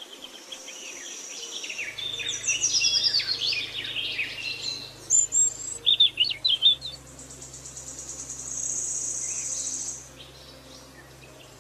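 Songbirds chirping, with quick downward-sweeping whistled notes, and a high, steady buzzing trill near the start and again for about three seconds in the second half. A faint low hum runs underneath from about two seconds in.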